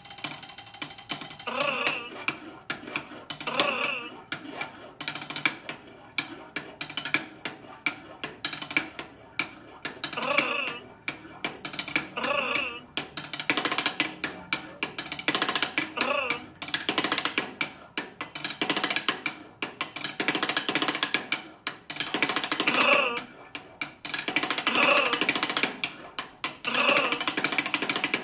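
Fast, dense metallic rattling from a stick worked against the vibraphone's inner metal parts under the bars, near the resonator tubes. Short, voice-like pitched syllables cut in every two seconds or so.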